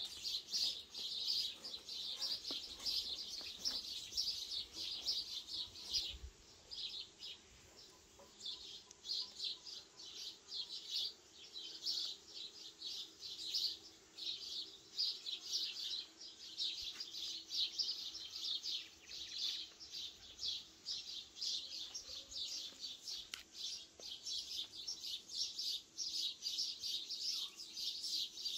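Small birds chirping, a dense chorus of quick high chirps that thins out briefly about six seconds in.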